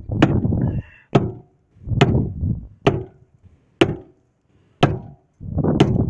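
Repeated heavy blows from a long-handled bar or hammer driven down onto a flat skid steer tire and its rim, about one a second, each a sharp crack with a short rumble and a little metallic ring after it.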